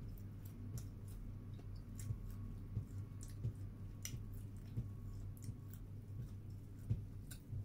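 A person chewing a lettuce sandwich close to the microphone, with irregular wet mouth clicks and smacks, over a steady low hum.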